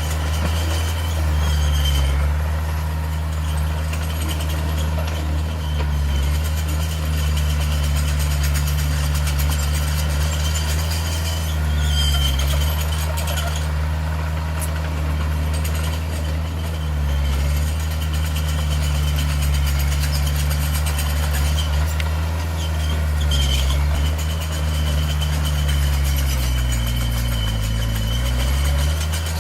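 Heavy diesel engine of earthmoving equipment running steadily, its pitch dipping briefly near the end.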